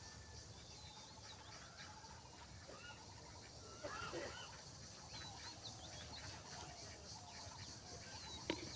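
Faint outdoor ambience with several small birds calling: short chirps and a rapid trilling note, with a brief louder call about four seconds in. A single sharp tap near the end.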